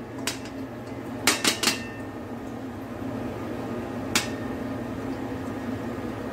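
A stainless steel wok and colander clinking as fried egg is tipped from the wok into the colander: a single clink just after the start, a quick run of three about a second and a half in, and one more near four seconds, over a steady low hum.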